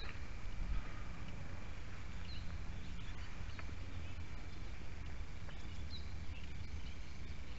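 Rural outdoor ambience: a steady low rumble with a thin, steady high whine above it, and a few faint, short bird chirps, one near the start, one a little past two seconds in and one about six seconds in.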